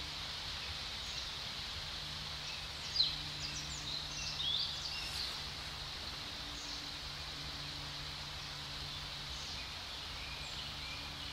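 Woodland ambience: scattered short bird chirps, one slightly louder about three seconds in, over an even soft hiss and a faint steady low hum.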